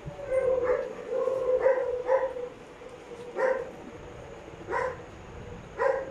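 A dog barking in short, sharp yips: several come close together at first, then three single barks follow about a second and a half apart.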